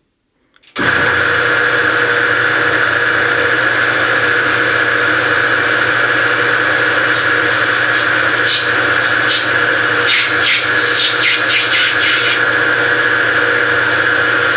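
Rambold turret lathe running with a steady whine from its motor and spindle drive, starting abruptly about a second in. Midway a fast scatter of sharp ticks comes through as the tool faces off the end of the brass bar stock.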